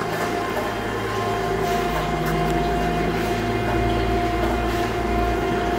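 Okamoto ACC-1224-DX surface grinder running under power: a steady motor hum with a constant high whining tone.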